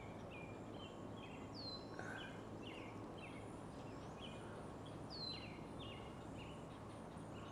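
Faint marsh birdsong: many short chirping calls repeating throughout, with a higher down-slurred whistle twice, over a low steady background hum.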